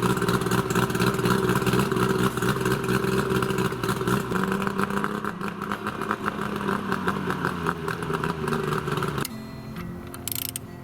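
An engine running at a steady speed, cutting off about nine seconds in.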